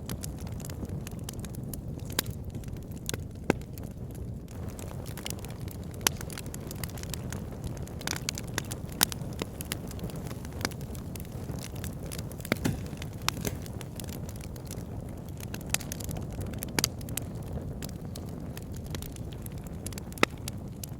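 Wood fire burning in a log burner: a steady low rumble of flames with scattered sharp crackles and pops from the burning logs, about one or two a second.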